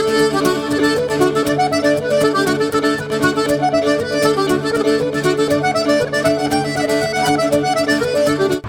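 Lively Irish folk music with accordion and fiddle over a steady rhythm, which stops abruptly near the end.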